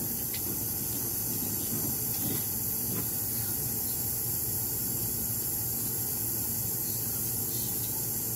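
Steady hiss of background noise, with a few faint small clicks as a tiny, stiff piece of slime is stretched and pressed between the fingers.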